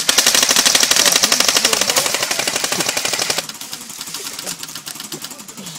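Airsoft rifle firing one long full-auto burst, a rapid even clatter of shots that stops about three and a half seconds in.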